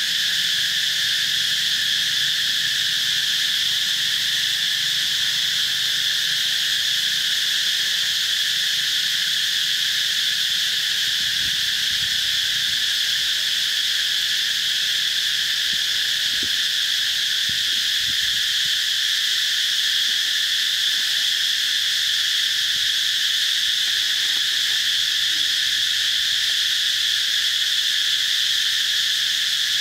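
Continuous chorus of insects, a steady high-pitched drone that does not change.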